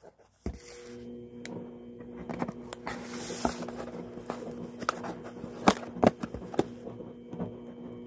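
Cardboard takeaway box being handled and opened: paperboard scraping and sliding, with a string of taps and a few sharp clicks, loudest a little past halfway, over a steady low hum.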